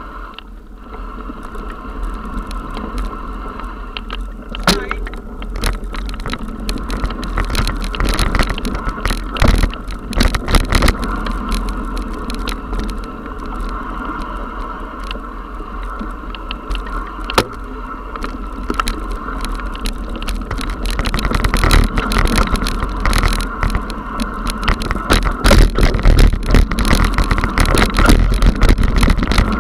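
Mountain bike riding down a rough dirt forest trail, heard through a bike-mounted action camera: a steady rush of tyre and ride noise with constant rattling and sharp knocks as the bike and camera mount jolt over bumps and stones. It grows louder and more jarring about two-thirds of the way through.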